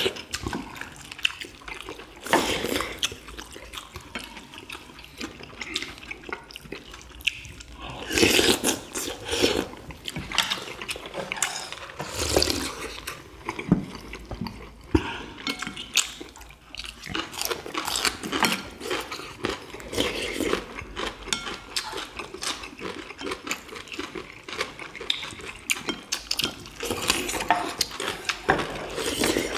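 Eating sounds from several people: slurping spoonfuls of chicken broth, chewing boiled chicken and kimchi, and spoons and chopsticks clicking against ceramic bowls, in scattered bursts.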